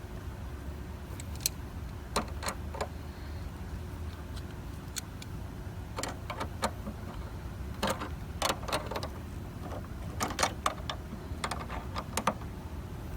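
Irregular light clicks and clinks of small parts and tools being handled, in clusters, over a low steady rumble.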